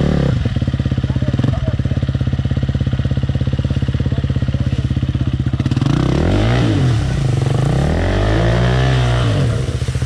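Enduro motorcycle engine idling with a steady pulsing beat, then revved up and back down twice in the second half.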